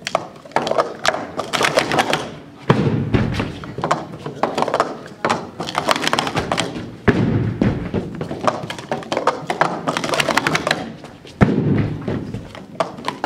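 Plastic sport-stacking cups clattering in quick runs of clicks as they are upstacked and downstacked into 3-6-3 pyramids one stacker after another, with three heavier thumps about four seconds apart.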